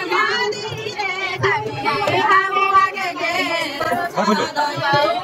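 Singing: a high voice carrying a melody that rises and falls in pitch.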